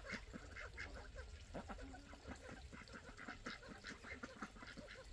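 A flock of domestic ducks quacking and calling while they feed, with many quick, short clicks and pecking sounds among the calls.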